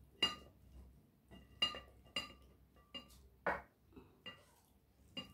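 Clear glass plate clinking as rice is mixed on it by hand: about seven sharp knocks, each with a short ringing tone, at uneven intervals.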